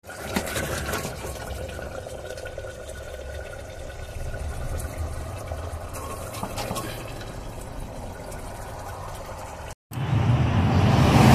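Chicken curry simmering and bubbling in an open aluminium pressure cooker, with a ladle stirring and clicking against the pot about six seconds in. Near the end it cuts to louder road noise with a vehicle approaching.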